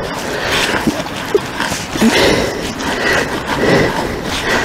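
Dry fishing groundbait being rubbed through a sieve by hand: a rhythmic rustling hiss that swells with each stroke, roughly twice a second.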